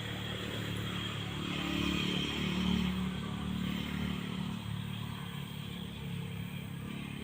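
A motor vehicle's engine going past, growing louder to a peak about two to three seconds in and then fading.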